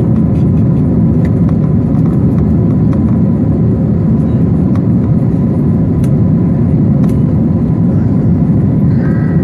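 Cabin noise of an Airbus A320-family jet climbing after takeoff: the steady low drone of the jet engines and rushing air, with a faint high steady tone over it.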